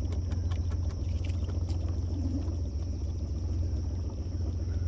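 Boat motor running at a low idle with a steady low rumble as the boat creeps along a crab trotline, with faint scattered clicks over it.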